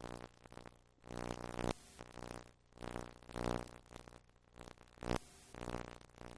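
Background music: a pitched instrumental tune whose notes swell and fade about once a second.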